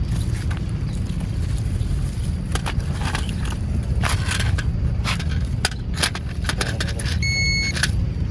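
Toy metal detector giving one steady electronic beep, a bit under a second long, near the end, its detection signal for a metal toy car hidden in the plants. Before it, leaves and stems crackle and rustle as the detector's coil is swept through the vegetation, over a steady low rumble.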